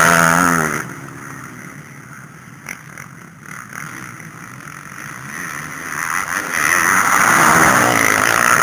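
Motocross bikes racing past, their engines revving up and down. The first bikes are loud at the start and fade after about a second. More bikes come up and grow loud again near the end.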